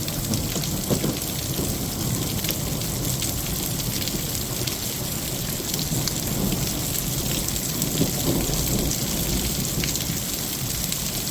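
Heavy rain pouring steadily in a thunderstorm, a dense patter of drops, with low rumbles of thunder now and then.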